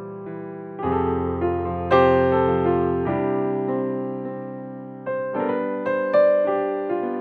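Background piano music: slow, sustained chords, each struck and left to ring and fade, with a new chord about every second or two.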